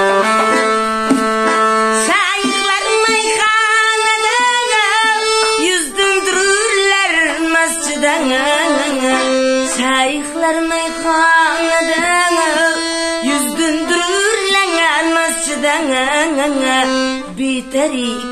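Piano accordion playing held chords, joined about two seconds in by a woman's voice singing long, wavering melodic lines without clear words over the accordion.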